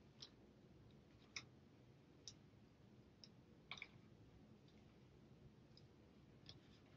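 Near silence: quiet small-room tone with a few faint, scattered clicks.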